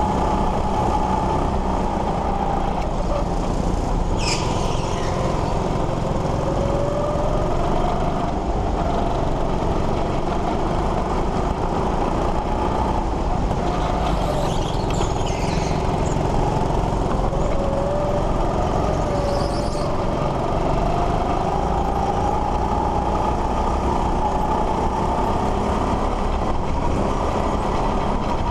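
Go-kart motor running steadily under heavy rumble, its pitch slowly rising and falling with speed through the corners. Brief high squeals come about three times.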